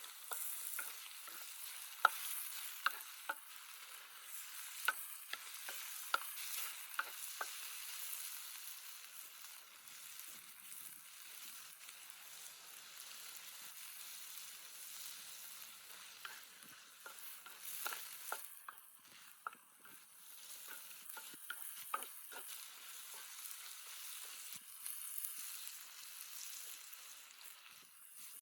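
Food frying in a pan with a steady sizzle. A utensil clinks and scrapes against the pan in two spells of scattered strokes, in the first several seconds and again a little past halfway.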